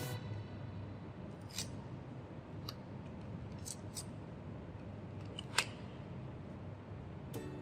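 A handful of separate sharp clicks and snaps as a memory card's plastic packaging is opened by hand. The loudest snap comes a little past halfway through.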